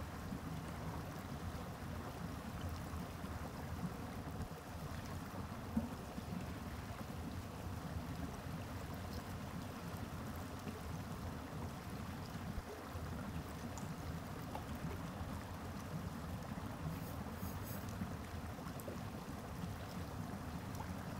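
A small rocky stream running steadily, a continuous rush of water. There is one small knock about six seconds in.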